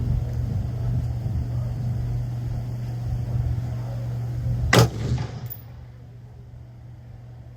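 A single AR-15-style rifle shot about two thirds of the way in, over a steady low hum.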